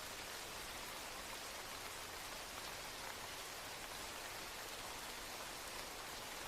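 A steady, even hiss like falling rain, unchanging throughout.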